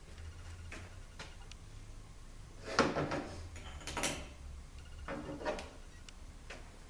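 Steel planetary gear-set parts of an automatic transmission, a ring gear and planet carrier, handled and set down on a workbench: a few scattered metal clinks and clunks, the loudest about three and four seconds in.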